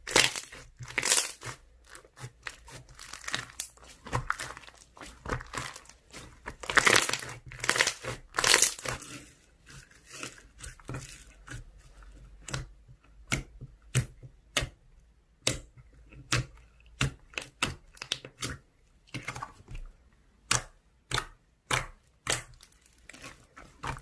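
Slime being played with by hand, squeezed and pulled so that it crackles and crinkles in irregular pops and clicks, denser in the first half and sparser, sharper snaps in the second half.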